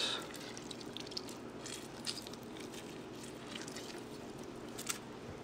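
Faint wet squishing of a lime half squeezed by hand, its juice dripping into a plastic mixing bowl, with a few soft clicks.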